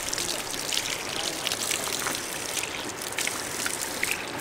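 Spring water running from a pipe spout in a stone wall, a steady trickle splashing onto a cupped hand.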